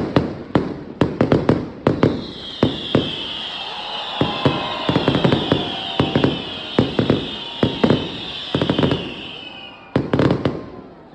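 Fireworks going off: many sharp bangs and pops in quick clusters, with a continuous high hiss from about two seconds in until near the end.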